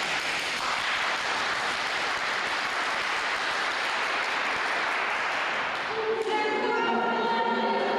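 A group of people clapping steadily and fast. About six seconds in, music with held, sustained notes comes in over it.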